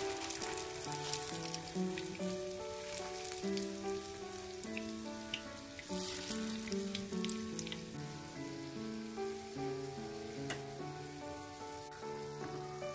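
Food sizzling as it fries in hot oil, a steady hiss with a few light clicks, under soft background music with a slow melody.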